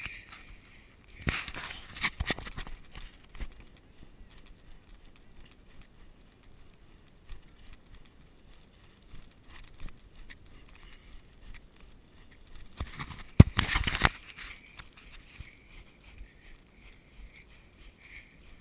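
Running footsteps on loose volcanic scree and gravel: a quick patter of crunching footfalls, with two louder rough stretches of a second or two, one soon after the start and one about two-thirds of the way through.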